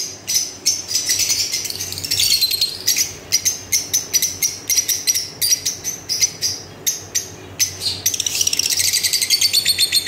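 Lovebirds chattering: a dense stream of sharp, high-pitched chirps, with quicker runs of rapidly repeated notes about two seconds in and again near the end.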